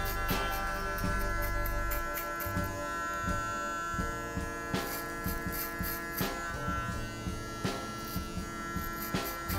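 Cordless hair clipper with a 9 mm guard running with a steady buzz while it cuts hair on the side of the head. A deeper drone underneath drops away about two seconds in. Background music with a regular beat plays throughout.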